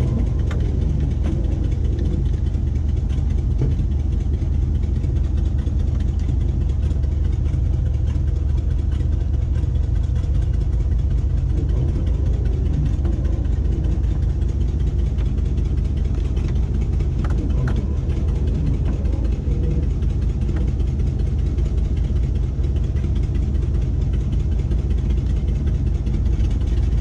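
An old Ford pickup's engine idling steadily, heard from inside the cab with the hood up.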